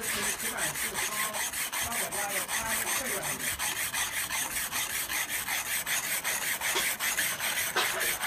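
Grill pumice stone scrubbing a greasy grill, a dry, gritty rasp in rapid, even back-and-forth strokes, several a second, as it grinds off the grease.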